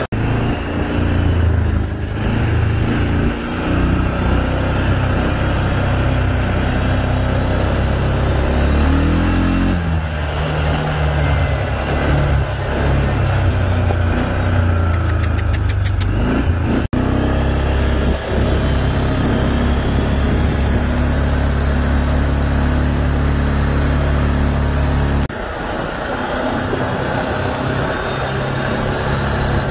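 Four-wheeler ATV engine running as the quad rides along a dirt trail, a steady drone whose pitch rises and falls about nine to ten seconds in as the speed changes, then holds steady.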